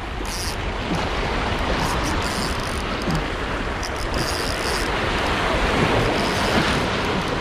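Sea surf washing against shore rocks, mixed with wind buffeting the microphone: a steady, loud rush of noise.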